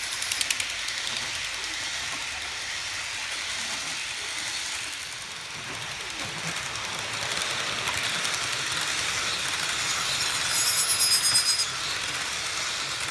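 HO-scale model trains running on the track: a steady rolling hiss of metal wheels on rail that grows louder about seven seconds in, with a quick rapid rattle near the end as cars pass close by.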